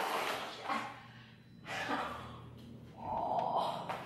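A man gasping and breathing through his hand, holding back laughter.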